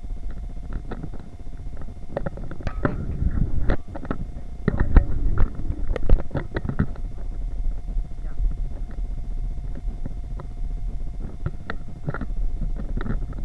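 Wire shopping cart rolling across a supermarket floor: a steady low rumble from its wheels, with rattles and knocks from the wire basket, heaviest from about two to seven seconds in and again near the end.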